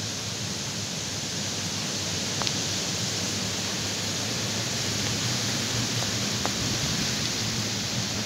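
Steady, even hiss throughout, with a couple of faint ticks.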